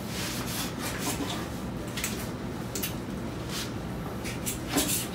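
Knife slicing through a grilled beef London broil steak, its blade scraping on a wooden cutting board in a series of uneven strokes.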